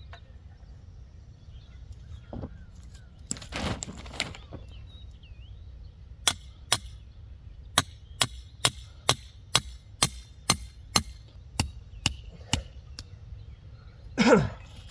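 A series of about fourteen sharp knocks, roughly two a second, like striking wood, followed near the end by one louder, rougher burst.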